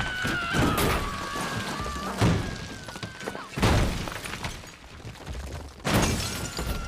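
A car tumbling down a rocky cliffside: a series of heavy crashes and smashing impacts, a second or two apart, with a wavering high tone over the first few seconds.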